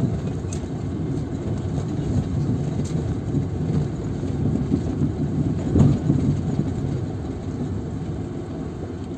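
Car cabin noise while driving slowly on a sandy dirt track: a steady low engine hum and tyre rumble, with a single thump about six seconds in.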